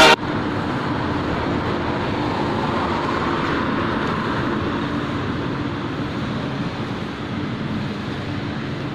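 City street traffic: cars driving by and running nearby as a steady road noise, with one vehicle's sound swelling and fading about three to four seconds in.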